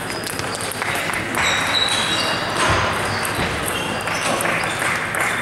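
Table tennis balls clicking off bats and tables, an irregular patter of sharp ticks with the odd brief high ping from several tables in play at once.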